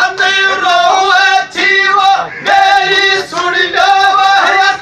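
Male voice singing a Gujjar dhamal folk song loudly, in long held phrases with brief breaks between them.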